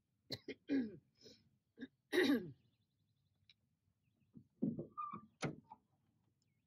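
A person close to the microphone coughing and clearing their throat in short bursts, in two clusters a few seconds apart.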